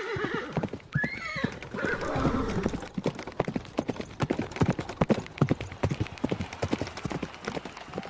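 A horse whinnies about a second in, followed by horse hooves clip-clopping on hard ground. The hoofbeats come in quick, uneven strokes, several a second, and fade slightly toward the end.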